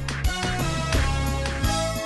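Background music with a steady beat: an upbeat anime soundtrack with bass, drums and guitar.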